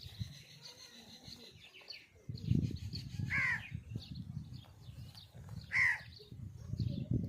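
A crow cawing twice, about two and a half seconds apart, over light chirping of small birds. A low rumbling noise runs underneath from about two seconds in.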